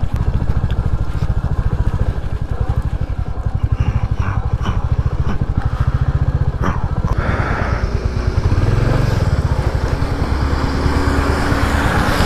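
Royal Enfield Hunter 350's single-cylinder engine running at low road speed, a steady rapid thump of firing pulses. A heavier engine hum joins near the end as a truck comes close alongside.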